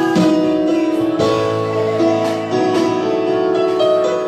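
Instrumental worship music with no singing: held keyboard chords over guitar, changing chord every second or so.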